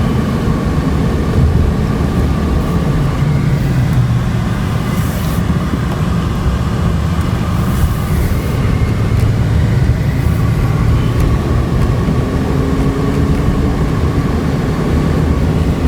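Engine and road noise inside the cabin of a 2008 Hyundai Santa Fe under way, steady, with the engine note rising a little near the end. The engine is running smoothly again now that its cylinder misfire is cured.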